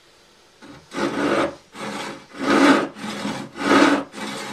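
Freshly sharpened brass-backed saw cutting into a block of oak, starting the cut. After a short pause come about three back-and-forth strokes, rasping, with louder and softer strokes alternating.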